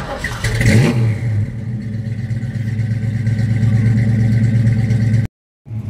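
Classic Ford Mustang fastback's engine given a quick rev about half a second in, then settling to a steady idle. The sound breaks off for a moment near the end.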